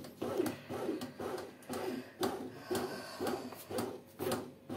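Redmond RBM-M1910 bread machine starting its slow first knead: the paddle turns through the flour and dough in the pan with a rhythmic rubbing and scraping.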